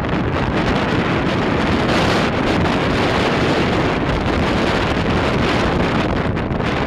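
Strong wind blowing across the microphone: a loud, steady rushing noise.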